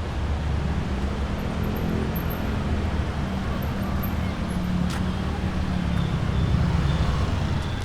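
Steady low rumble of urban street ambience, with a brief sharp click about five seconds in.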